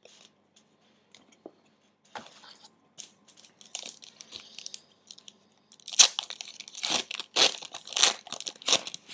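Trading-card pack wrapper crinkling and tearing as it is opened, with a few scattered crackles first and then a loud, dense crinkling over the last three seconds.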